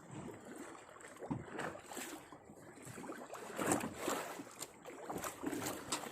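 Water lapping and sloshing against the hull of a small fishing boat, in irregular swells with a few sharper splashes.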